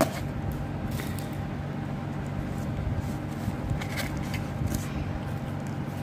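Scissors slitting packing tape on a small cardboard box, then the box flaps being pulled open. It comes through as a few faint clicks and rustles of cardboard over a steady low hum.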